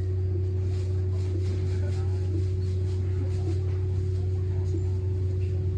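A steady low machine hum runs throughout, with a constant tone above it, under faint voices.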